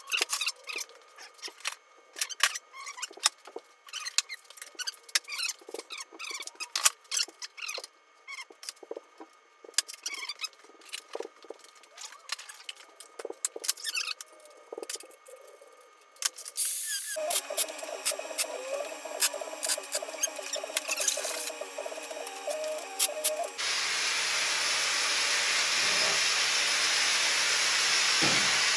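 Metalworking shop sounds: for about the first sixteen seconds, scattered clicks, taps and short squeaks of work on angle iron, then, after abrupt changes, a steady power-tool noise that grows slowly louder near the end.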